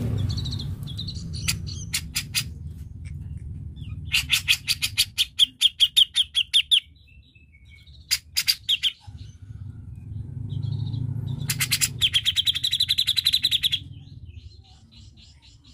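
Grey-cheeked bulbul (cucak jenggot) chattering: two long runs of fast repeated notes, about eight a second, starting about four seconds in and again about twelve seconds in, with shorter call notes between. A low rumble runs under the start and again just before the second run.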